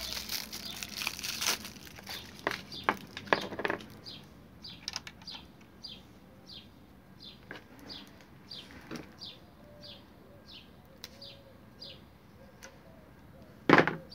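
Plastic wrapping crinkling for the first few seconds as a roll of electrical tape is unwrapped. After that a bird chirps over and over, short falling chirps about twice a second. A sharp knock comes near the end.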